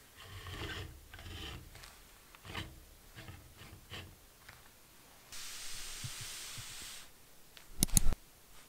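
Handling noise of a smartphone being lifted from and set back into a plastic phone-holder stand by a leather-gloved hand: soft rubbing and light taps of phone and glove against the plastic cradle. A steady hiss runs for about a second and a half past the middle, and a quick run of sharp clicks near the end is the loudest sound.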